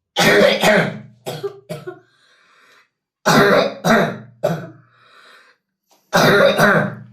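A 12-year-old boy coughing in three bouts a few seconds apart, each bout one to three coughs. This is a fit of the chronic cough he has had for eight years without a diagnosis.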